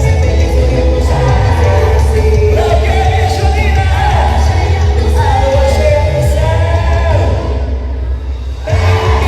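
Loud music with singing over a heavy bass. The music drops back briefly near the end, then comes in full again.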